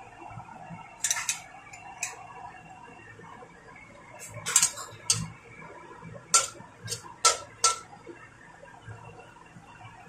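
Metal spatula clinking and scraping against a stainless-steel wok while stir-frying eggplant and carrots, in irregular strokes, the loudest between about four and eight seconds in.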